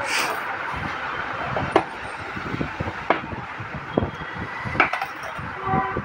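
A cardboard smartphone box handled on a glass counter: several light knocks and taps as the box is lifted and opened, over a steady background hiss.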